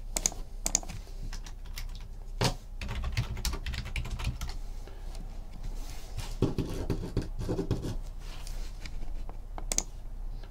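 Irregular clicking of typing on a computer keyboard, with one sharper click about two and a half seconds in and a busier stretch of handling noise a little past the middle.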